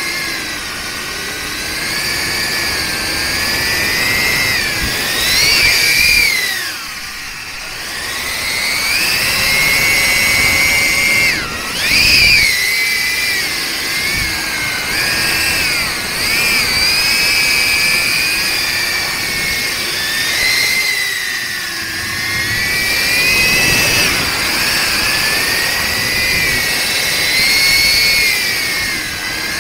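Darwin FPV CineApe 25 cinewhoop drone on a 4S battery, its brushless motors and 63 mm ducted five-blade Gemfan props whining as it flies, recorded on the drone itself. The whine rises and falls in pitch with the throttle, easing off briefly about seven seconds in and again around twenty-one seconds.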